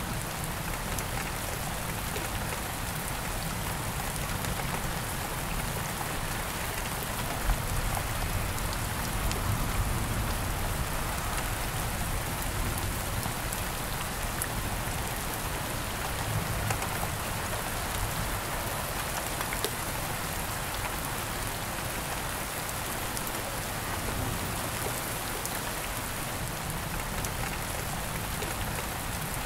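Steady rain falling on a surface, with a constant hiss and scattered individual drops ticking, a few of them louder than the rest.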